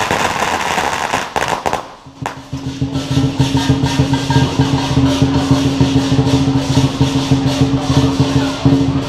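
A string of firecrackers crackling, dying away about two seconds in; then lion dance percussion, drum with cymbals and gong, starts up and beats steadily.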